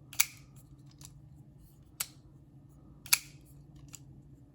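Varga VBR pocket knife being flicked open and shut, its blade snapping into place with three sharp clicks about a second apart and a few fainter ones, as the action of the freshly oiled pivot is tested.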